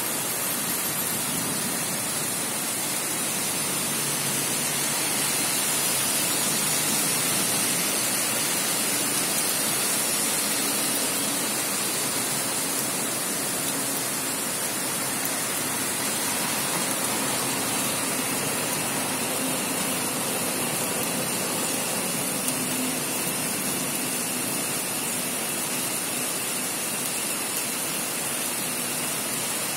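Heavy rain falling steadily on a city street, a constant even hiss of water.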